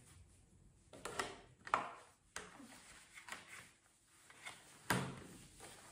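Faint scattered clicks and rustles of MX goggles' elastic strap and plastic frame being handled and stretched over a motocross helmet, with a sharper click about five seconds in.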